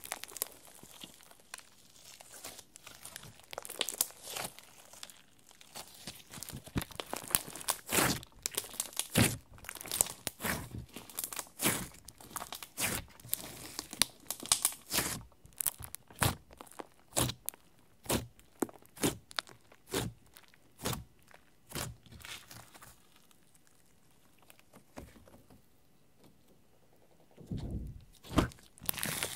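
Hands squeezing and kneading a thick clear slime mixed with clay and glitter, giving a fast irregular run of sharp wet clicks and pops as air pockets in the slime burst. The clicking dies down to almost nothing for a few seconds near the end, then starts again louder.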